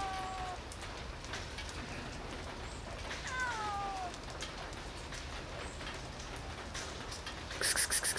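A hungry cat meowing for food: the tail of one meow at the start, then one drawn-out meow falling in pitch about three seconds in, over a steady patter of rain. A short burst of clicks near the end.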